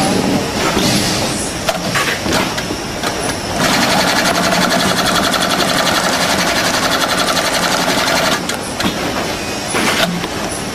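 GR-268 double-thread seated inseam sewing machine stitching a shoe. It runs fast in a dense, even rhythm for about five seconds in the middle, with scattered clicks and knocks before and after.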